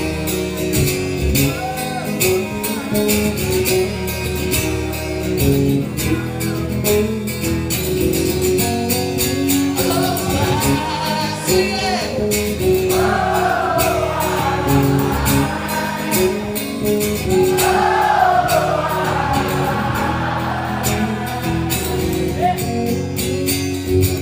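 Live acoustic band playing an instrumental passage: strummed acoustic guitar and sustained notes over a steady percussive rhythm, with wordless singing that rises in about ten seconds in.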